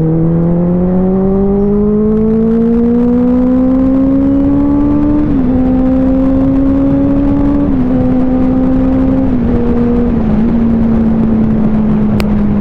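Benelli 600i motorcycle's inline-four engine accelerating, its note rising steadily for about five seconds, then stepping down a little several times and levelling off at a steady cruise. Wind rush underneath, and a short click near the end.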